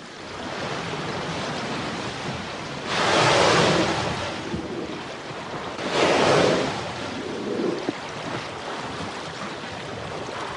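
Steady sea and wind noise with two loud rushing blows, each about a second long and some three seconds apart: a bowhead whale breathing out at the surface.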